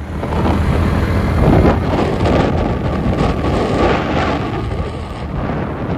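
Wind rushing and buffeting over the microphone of a camera riding on a moving motorbike, with a steady low engine drone underneath.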